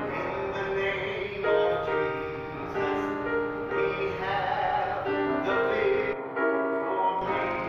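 Grand piano playing, held chords changing every second or so.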